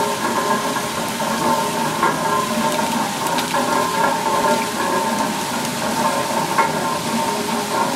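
A large metal mill waterwheel turning, water splashing off it and running down the tailrace, with a steady high whine from the wheel's turning works over the splashing.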